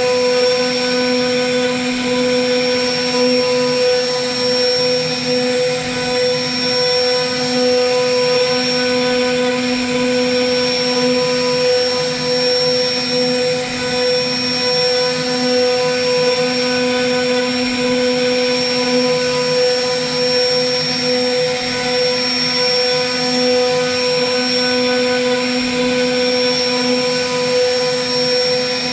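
CNC router spindle running with a steady whine while its bit carves a relief pattern into a wooden panel.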